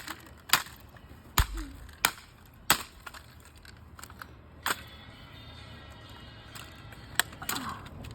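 Hard blows striking an alarm clock to smash it: six sharp impacts, four in quick succession and then two more spaced out, about 5 s and 7 s in.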